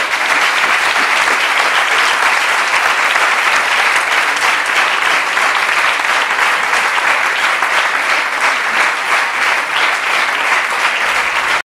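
Audience applauding steadily, breaking off abruptly at the end.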